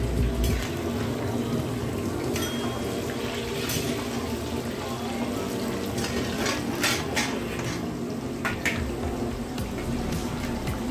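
Hot oil bubbling and sizzling steadily as a kadai full of batter-coated chillies (mirchi bajji) deep-fries, with a few sharp clinks of a metal ladle against the pan, most of them in the second half.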